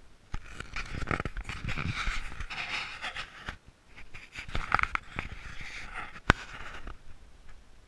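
Camera handling noise: irregular rustling and rubbing against a nylon windbreaker, with low thumps and one sharp knock about six seconds in.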